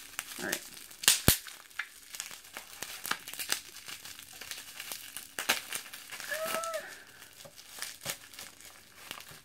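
Plastic wrapping crinkling and crackling as it is pulled open by hand, in irregular sharp crackles, the loudest a pair about a second in.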